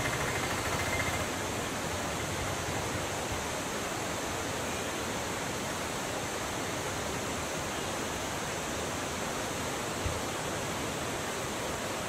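Charppa waterfall in full flow: a steady, unbroken rush of falling water.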